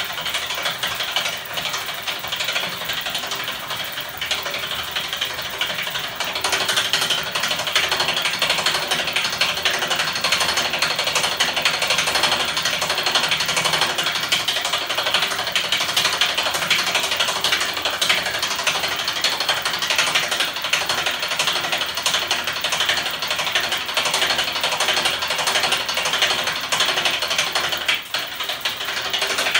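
Homemade magnet engine spinning fast: its crankshaft, arms and small electric motors make a steady, dense clatter of rapid clicks. It grows louder about six seconds in and dips briefly near the end.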